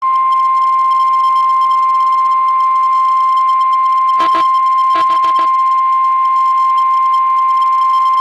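NOAA Weather Radio 1050 Hz warning alarm tone: one loud, steady high beep that starts suddenly and is held unbroken, with two brief crackles of static around four and five seconds in. The tone is the alert signal ahead of a National Weather Service severe thunderstorm warning.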